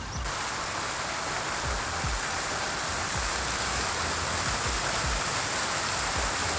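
Steady rushing noise of running water, starting abruptly just after the beginning and holding level throughout.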